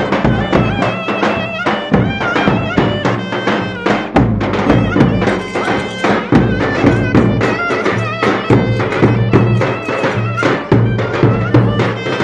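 Traditional Turkish folk dance music played at a village wedding: a wavering melody line over a steady, quick drum beat.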